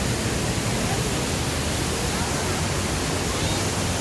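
Düden Waterfall: a steady, even rush of falling water.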